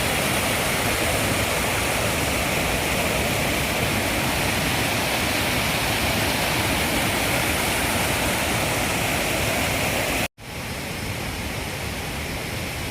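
Steady rush of falling water from a waterfall cascade. About ten seconds in it cuts out abruptly for an instant and resumes slightly quieter.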